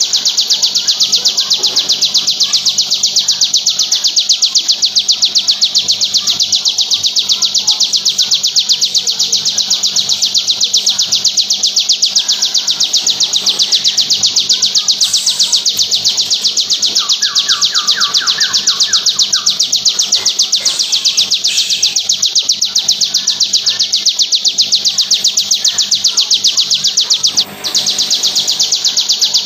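Caged ciblek (bar-winged prinia) singing its rapid, unbroken 'bren' trill, a fast high rattle of repeated notes with one brief break near the end.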